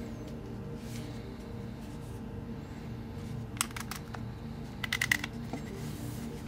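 Clicks from Minox BL 8x56 binoculars being handled, most likely the twist-up eyecup being turned through its click stops: a single click about three and a half seconds in, then a quick run of about five clicks around five seconds in. Soft background music runs underneath.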